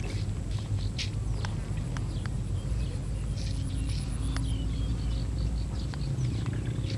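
Small birds chirping and whistling on and off over a steady low rumble, with a few faint clicks.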